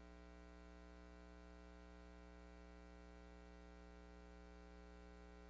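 Near silence with a faint, steady electrical hum made of many unchanging tones.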